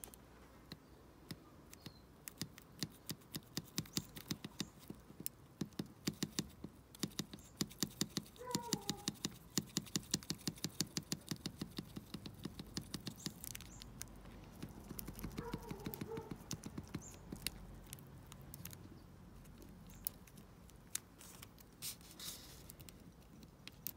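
Small metal clicks and rattles from a dimple lock cylinder worked by hand, its core being jiggled to free a top pin trapped in the circlip channel. The quick light clicks come several a second for about ten seconds, then grow sparser.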